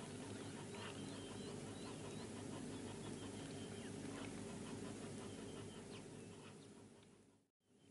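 Faint outdoor bush ambience: small high chirps repeat every half second or so over a low, steady hum, with a few soft clicks. The sound fades out briefly near the end and comes back.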